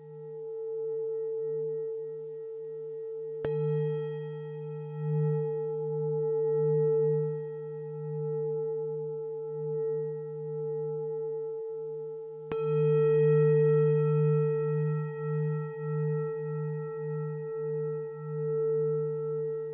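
Singing bowls ringing: a low, wavering hum under a steady higher tone. A bowl is struck twice, about three and a half seconds in and again about twelve and a half seconds in, and each strike adds bright overtones that ring on. The ringing begins to fade near the end.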